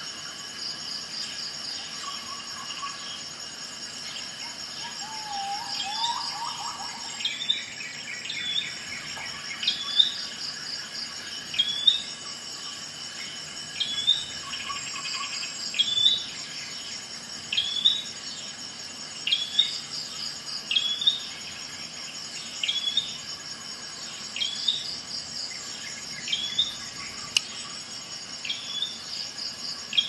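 Insects chirping steadily in a high, pulsing drone, with a bird repeating a short upward-hooked chirp about every one to two seconds.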